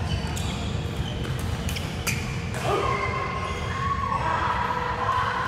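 Badminton doubles rally: a few sharp racket hits on the shuttlecock in the first couple of seconds, then high squeaky tones like shoes squealing on the court floor, over the low rumble of a busy hall.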